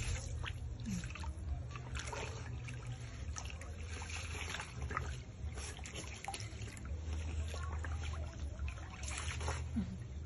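Otter rolling and paddling in shallow water: repeated small, irregular splashes and drips, over a steady low hum.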